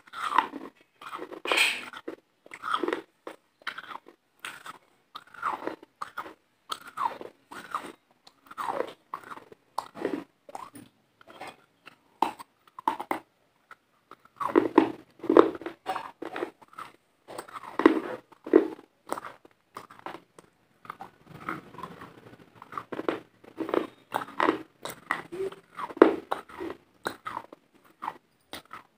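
Close-miked crunching and chewing of hard white food pieces, bitten and crunched about once or twice a second, with a short lull about halfway through.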